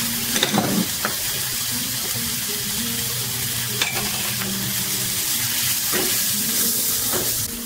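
Chopped onions sizzling in oil in a nonstick frying pan, with a wooden spatula stirring and scraping across the pan several times.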